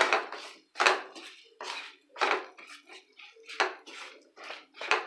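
A spatula stirring and scraping raw banana pieces in an oiled kadai: repeated short scraping and clattering strokes, about seven in five seconds, as chilli powder and salt are tossed through the pieces.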